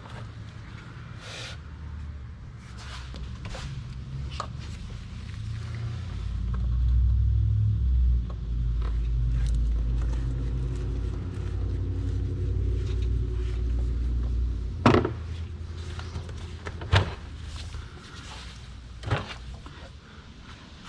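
Hand work on the engine's plastic intake pipe and its fittings: scattered clicks and knocks, the three sharpest near the end. A low rumble of unclear source swells in for about nine seconds in the middle.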